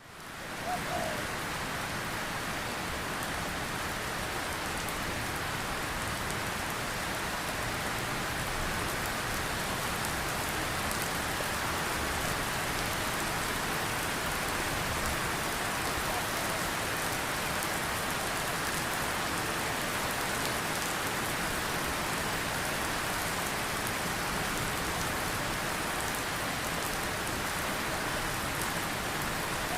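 Heavy rain falling and pattering steadily on surfaces, a dense even hiss that fades in at the very start and then holds level.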